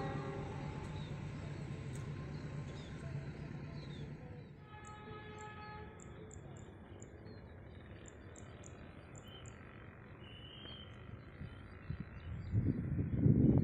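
A diesel locomotive's horn dies away with the fading rumble of a train that has just passed, and about five seconds in a fainter train horn sounds one chord for about a second. Birds chirp quietly in between, and a loud, rough noise rises near the end.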